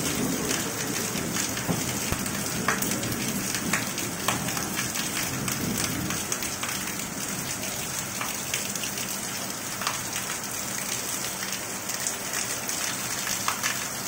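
Heavy rain falling steadily, with scattered sharp drip and splash ticks. A low thunder rumble dies away over the first few seconds.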